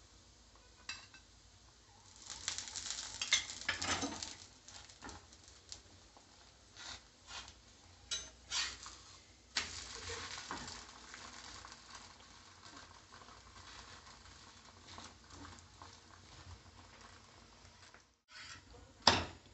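Poli frying in oil on a dosa tawa, a low sizzle throughout. A metal spoon and flat spatula scrape and tap against the pan, busiest a few seconds in, with one sharp knock near the end.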